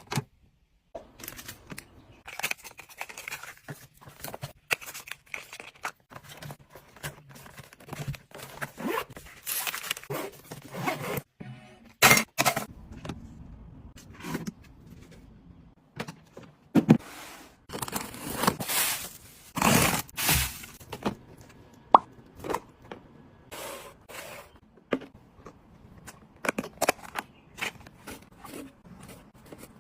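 Household items and packaging being handled and set down: a busy, irregular run of clicks, taps and knocks with a few longer scraping, rustling stretches.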